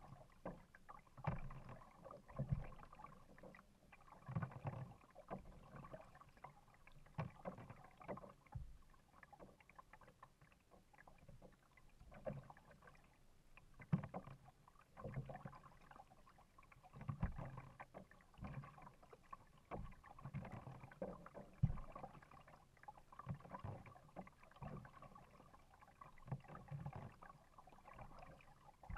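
Kayak paddle strokes in lake water, the blade dipping and pulling with a splash about every one to two seconds, with water sloshing against the plastic hull.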